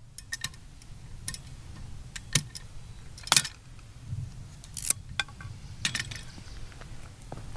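A series of irregular sharp clicks and light clinks, a few louder ones among them, over a low steady rumble.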